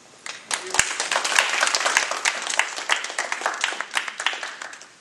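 Audience applauding, starting just after the opening and dying away near the end.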